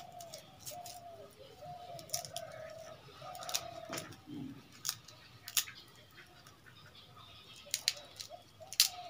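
Roasted crab shells cracking and snapping as they are broken apart by hand, in irregular sharp clicks, the loudest near the end.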